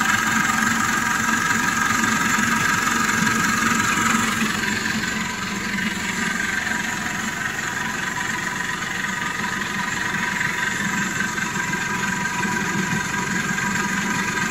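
The freshly rebuilt diesel engine of a Dodge S56 minibus idling steadily, running again after its fuel pump was overhauled and the fuel system bled. It gets a little quieter about five seconds in.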